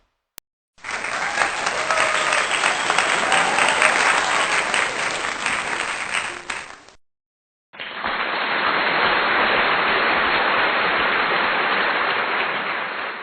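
Two applause sound effects, one after the other: an audience clapping for about six seconds, which fades out, then after a short gap a second, duller-sounding round of applause.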